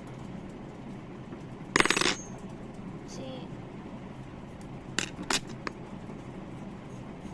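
Small metal blades clinking against a hard surface: a ringing metallic clatter about two seconds in, then two short clicks about three seconds later.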